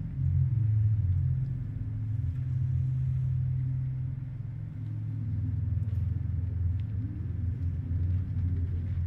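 Low rumbling drone from the stage's sound design, held steady, its low tones dropping lower about five seconds in.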